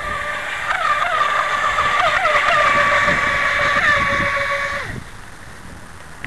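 Brushless electric motor (about 3600 kV, on an 11.1 V lipo) of a Tear-Into RC jet boat running at speed with a steady high whine. The pitch dips briefly a few times as the throttle changes, then drops and cuts off about five seconds in.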